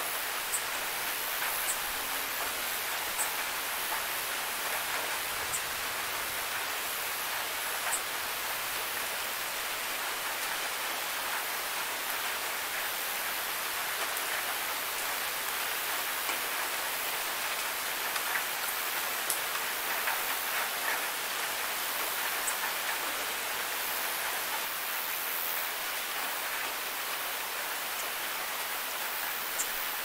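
Steady rainfall: an even hiss of many drops, with an occasional sharper single drop tick.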